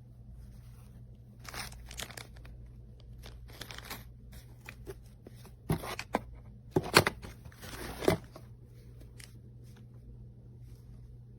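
Handling noise: rustling with scattered sharp clicks and knocks, a cluster of the loudest about six to eight seconds in, over a steady low hum.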